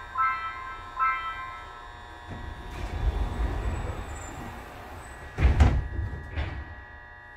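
Subway car door-closing chime, a few repeating notes, ending about a second and a half in. Then the sliding passenger doors run shut with a low rumble and meet with a loud thud about five and a half seconds in, followed by a lighter knock.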